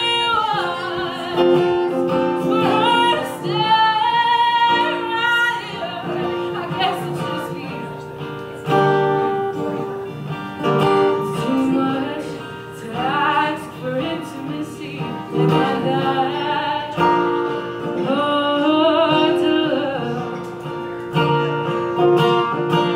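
A woman singing a song while playing an acoustic guitar, a solo live performance.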